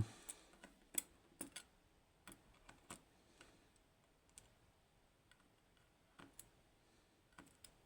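Faint, irregular small clicks of metal lock parts being handled: pins, springs and tools ticking against the lock body during disassembly, more frequent in the first few seconds.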